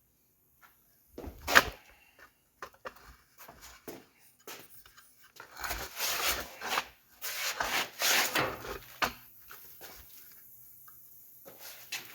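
Handling noises: a sharp knock about a second and a half in and scattered clatters, then a few seconds of rubbing and scraping.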